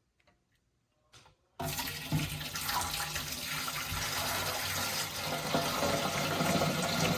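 Distilled water being poured into a humidifier's water tank, starting suddenly about a second and a half in and running steadily to the end.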